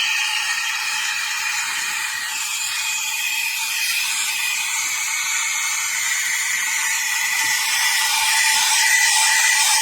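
Nesskoko espresso machine's steam wand hissing steadily, with a thin whistling tone in the hiss that grows louder over the last couple of seconds.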